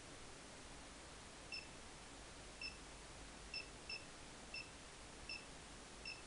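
Short, identical key-press beeps from an Android car stereo's touchscreen as the number 10010 is dialed on its phone keypad: seven beeps, unevenly spaced over about five seconds, the last likely the call button. A faint steady hiss runs underneath.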